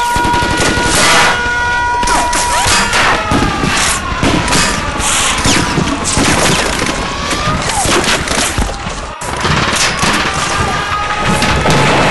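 Dense, rapid gunfire with booms, as in a film battle scene, cutting out for an instant about nine seconds in.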